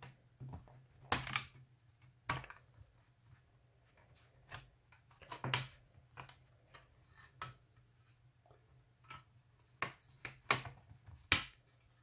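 HP Spectre x360 laptop's bottom cover being prised off by hand: about eight sharp, separate clicks and snaps as its edge comes loose from the chassis.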